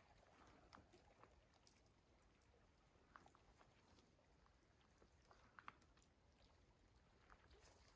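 Near silence, with a few faint, irregular crackles from a dying bed of campfire coals.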